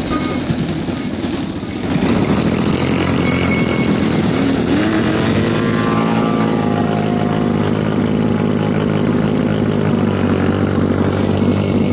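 Radio-controlled aerobatic model airplane's engine and propeller running, opening up to full power about two seconds in as it takes off and climbs away, then holding a loud steady drone with its pitch rising and falling.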